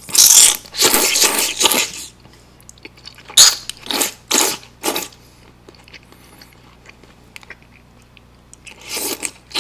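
Thick, wide Chinese glass noodles slurped loudly into the mouth: one long slurp over the first two seconds, a run of four short slurps in the middle, and another slurp near the end.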